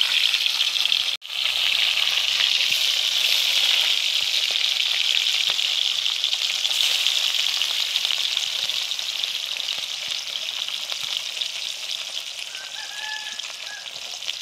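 Bata fish frying in hot oil in a wok: a steady, loud sizzle that dips for an instant about a second in and eases slightly toward the end.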